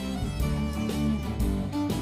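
Background music: fiddle over guitar, with changing melodic notes and a steady beat.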